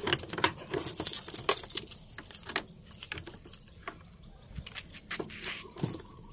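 A bunch of keys jangling, with metal clicks of a padlock against the steel hasp of a control box as the stiff lock is worked open. The jingling and clicks are busiest in the first few seconds and then thin out.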